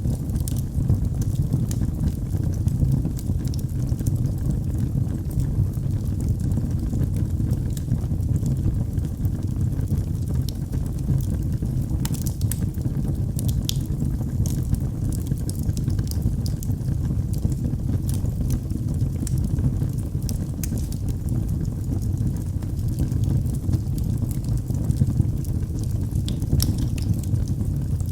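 Wood fire burning in a fireplace: a steady low rumble of the flames with scattered sharp crackles and pops, a small flurry of them about twelve seconds in.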